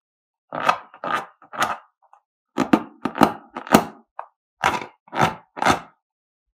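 A rubber balloon filled with fluffy slime being squeezed in the hands: a string of short squelching, crackling squeezes, about a dozen, in small clusters.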